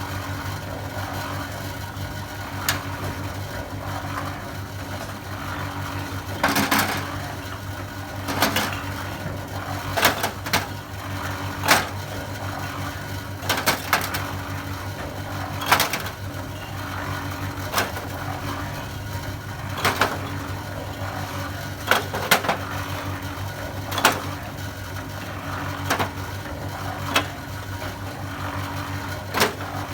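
Concrete mixer running with a steady motor hum, and a sharp knock or clatter every two seconds or so as it works.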